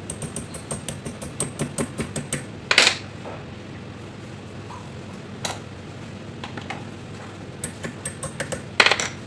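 Light clicks and rattles from cables and plastic wiring connectors being handled, quick at first at about four a second, then scattered. Two brief louder noises about three seconds in and near the end.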